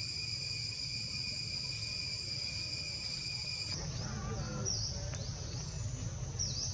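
Steady high-pitched insect drone, several pitches held at once over a low rumble of outdoor noise. About four seconds in it cuts to a different insect chorus with a few short high chirps.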